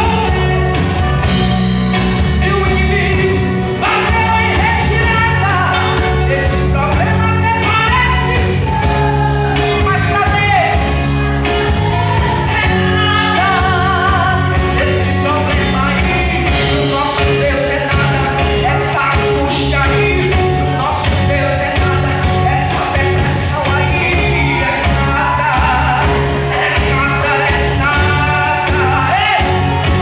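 A live gospel band playing a song: a woman sings lead into a microphone over electric guitars, a drum kit and keyboard.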